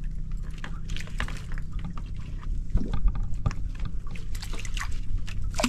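A small fishing boat's engine runs steadily, with scattered splashes and drips of water as a wet longline is hauled in by hand.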